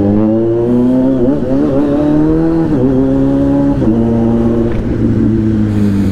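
Kawasaki Z900's 948 cc inline-four engine under way, its note rising in pitch, then dropping sharply three times about one, three and four seconds in as gears change or the throttle eases.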